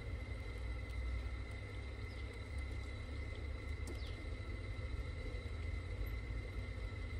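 LGB G-scale model train running past on garden track: a steady motor hum with a few held tones over a low rumble. A short high chirp sounds about halfway through.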